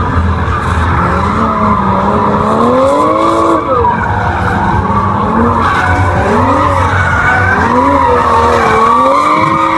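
Toyota GR Supra drifting: the engine revs rise and fall again and again as the throttle is worked, over a continuous squeal of the sliding tyres.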